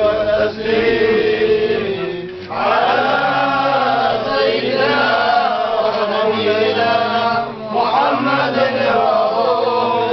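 Men chanting a salawat refrain, blessings on the Prophet, in long drawn-out melodic phrases. The voices pause briefly for breath about two seconds in and again near eight seconds.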